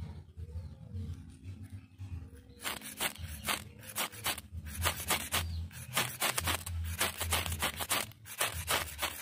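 Steel striker scraped hard and repeatedly down a Qura Quat ferrocerium rod, starting a few seconds in and going at about three to four short scraping strokes a second, striking sparks into fatwood shavings to light them.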